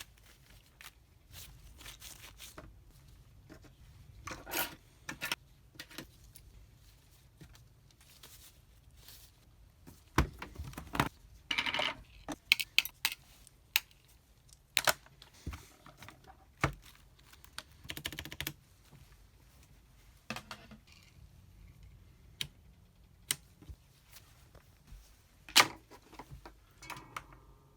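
Irregular plastic clicks and clatter from mechanical keyboard switches being handled, spaced out with pauses and a few short rustles, rather than steady typing.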